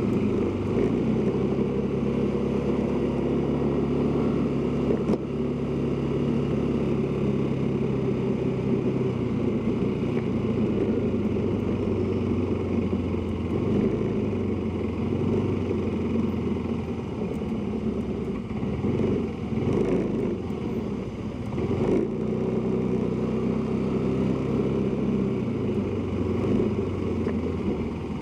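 Motorcycle engine running under the rider, with road and wind noise. The engine note is steady, drops lower and wavers from about ten seconds in, and settles back to a steady note a little past twenty seconds.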